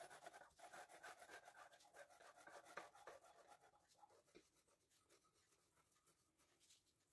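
Faint scratchy rasping of a large knife sawing horizontally through a baked chocolate sponge cake layer, dying away after about four seconds.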